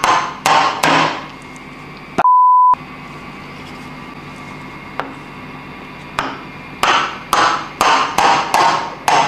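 Wooden hammer handle tapping a Ducati 998 piston crown, driving the piston with its new rings through a ring compressor into the cylinder bore: a few quick sharp knocks, then a stretch of small ticks, then a run of about seven taps near the end. About two seconds in, an edited-in half-second beep tone, with all other sound cut.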